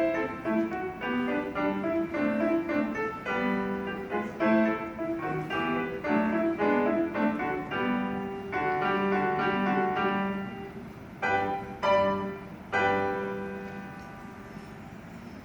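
Solo piano playing the closing bars of a piece, ending on three separate chords that ring out and fade away.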